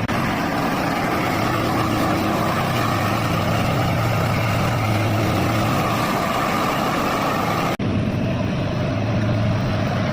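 Road roller's diesel engine running steadily with a low hum. It breaks off for an instant about eight seconds in and resumes sounding duller.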